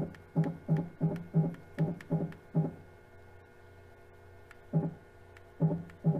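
CNC mill's X-axis stepper motor jogging the table in short taps: a run of about eight brief tones at one pitch, some three a second, then a pause and four more near the end. Underneath, the spindle runs steadily at slow speed.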